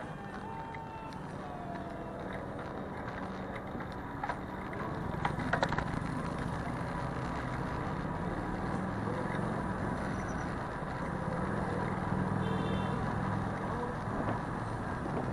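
Street traffic: cars and other motor vehicles running past, with a few short clicks about four and five and a half seconds in.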